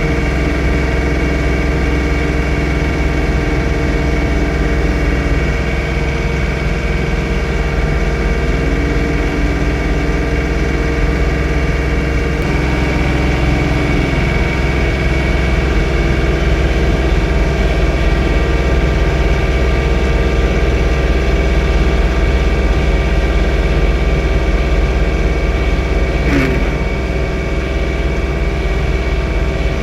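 John Deere 3046R compact tractor's diesel engine running steadily under snow-blowing work, with a whine that drops in pitch and comes back up a few times.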